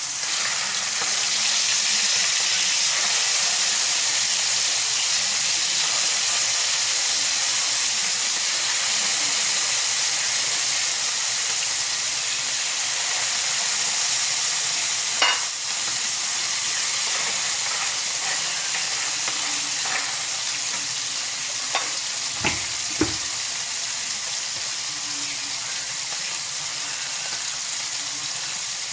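Food frying in hot oil in a pan on a gas stove, a steady loud sizzle. A few sharp clicks come about halfway through and again a few seconds later.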